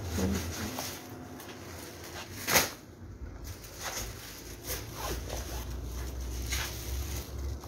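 Scattered rustles and sharp crinkles of paper kites and their bamboo frames being handled, the loudest about two and a half seconds in, over a steady low hum.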